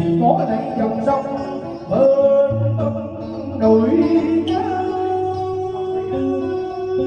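Music: a plucked guitar playing a melody, with singing.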